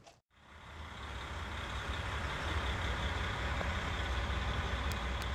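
Steady low rumble of a running engine. It starts after a brief break, builds over about two seconds, then holds level.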